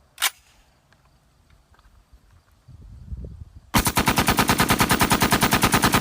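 A toy assault rifle's electronic machine-gun sound effect firing a rapid, even rattle of about nine shots a second, starting about four seconds in. A single click comes just before, near the start.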